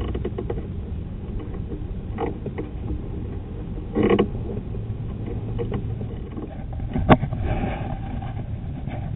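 Nylon zip tie being cinched by hand, giving scattered clicks and a short ratcheting rasp about four seconds in, then a sharp click about seven seconds in, over a low steady rumble.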